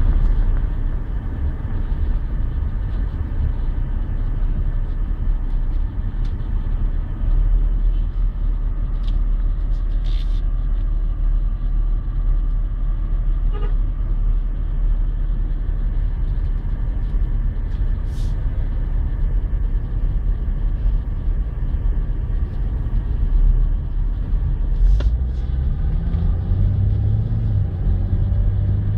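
Car engine and road rumble heard from inside the cabin in slow stop-and-go traffic, with a few brief clicks. Near the end the engine note rises as the car speeds up.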